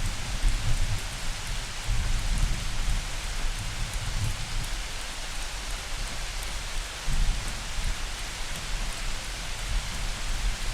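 Steady light rain falling in an even hiss, with low rumbles of thunder swelling a few times.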